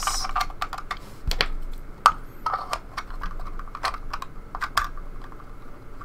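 Hard plastic parts of a 3D-printed lever lock clicking and tapping as the lock is handled and its tight-fitting cover pressed back on: a run of irregular light clicks, with a sharper knock about two seconds in.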